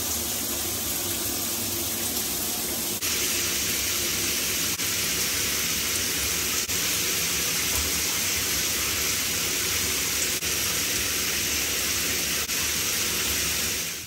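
Shower running: a steady hiss of water spraying from an overhead shower head, with brief small dips every couple of seconds.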